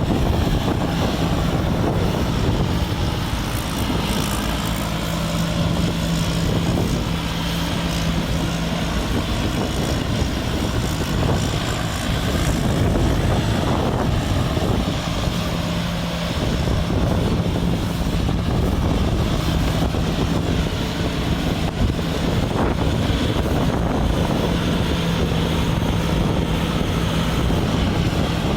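Rice combine harvester running steadily while harvesting: a continuous engine and threshing drone with a steady low hum that fades in and out.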